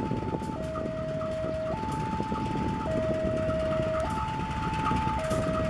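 Electronic two-tone level crossing alarm, a higher and a lower note swapping about every 1.2 s, over the low rumble of an approaching GE diesel-electric locomotive.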